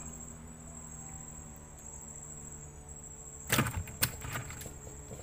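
Crickets trilling steadily at a high pitch over a low steady hum, with a brief cluster of sharp knocks about three and a half seconds in and one more knock about half a second later.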